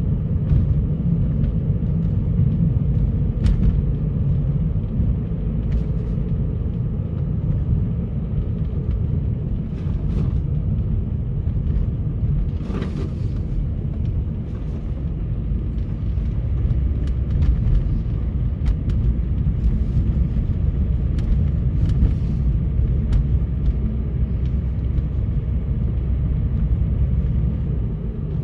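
Car driving on a snow-covered road: steady low rumble of engine and tyres, with a few faint ticks.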